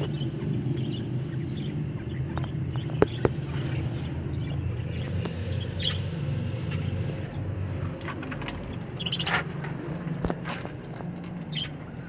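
Budgerigars giving short, scattered chirps over a steady low rumble, with a brief cluster of scratchy clicks about nine seconds in.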